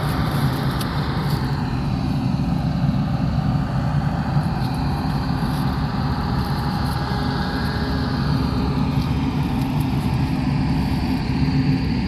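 A steady low engine drone with a slowly shifting upper tone.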